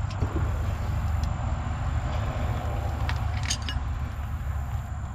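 A steady low rumble, with a few light metallic clinks about three seconds in as wrenches and the power-steering line fittings on the steering rack are handled.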